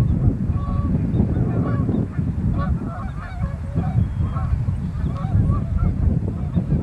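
A flock of Canada geese honking in flight, many short calls overlapping in quick succession, over a heavy low rumble.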